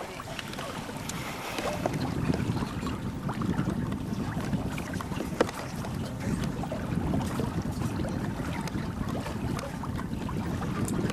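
Wind buffeting the camcorder microphone aboard a yacht under way, a steady rumble, with one sharp knock about five seconds in.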